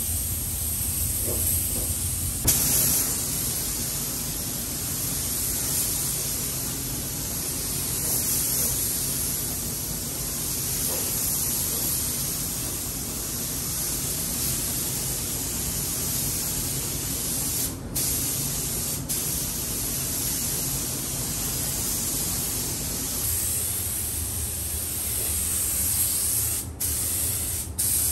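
Automotive gravity-feed paint spray gun hissing steadily as paint is sprayed onto a car. The hiss breaks off briefly a few times, once a little past the middle and twice near the end.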